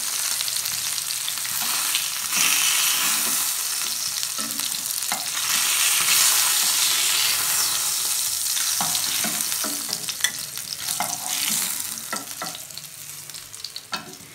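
Katla fish steaks frying in hot oil in a non-stick pan: a steady sizzle, broken by the clicks and scrapes of a metal spatula against the pan as the fried pieces are lifted out. The sizzle fades near the end.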